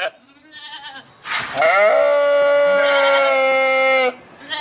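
Sheep bleating: one long, steady bleat lasting about two and a half seconds, and the start of another right at the end.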